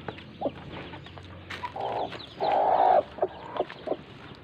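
Newly hatched chicks peeping with many short, high, falling peeps, over a mother hen's low clucks. The hen gives two longer, louder calls around the middle.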